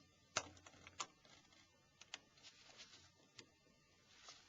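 Near silence with a few faint, scattered clicks, about six in all, from tools handling the plastic and metal parts of a Nokia 5140 mobile phone during disassembly.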